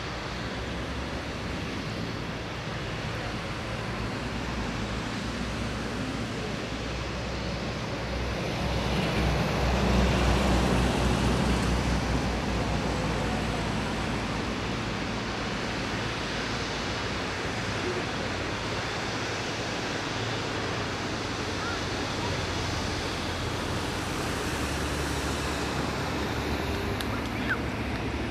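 A Boeing 777-300ER's GE90-115B turbofan engines at taxi power: a steady jet rumble and rush that swells to its loudest about ten seconds in, then settles back.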